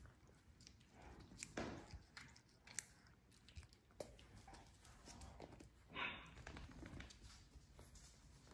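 Faint, scattered scuffles and clicks from a French bulldog puppy mouthing a blanket and padding across a hardwood floor, with a few louder knocks.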